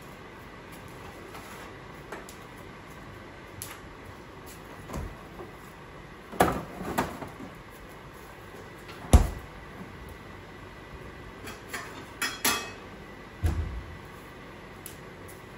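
Kitchen clatter while cooking: about eight separate knocks and bangs of cupboard doors and utensils being handled, the sharpest about nine seconds in.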